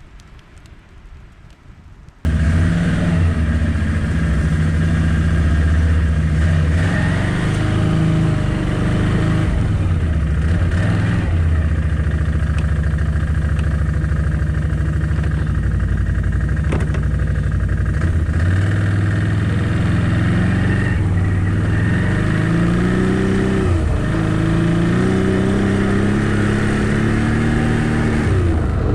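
ATV engine running, cutting in abruptly about two seconds in. It holds a steady pitch, then revs up and eases off several times near the end.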